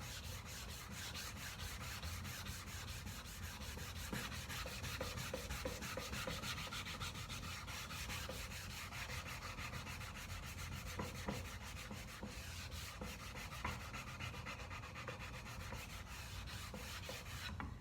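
Sandpaper rubbed back and forth over wood in steady, repeated strokes, smoothing the flat facets of a roundover cut on the table saw into an even curve.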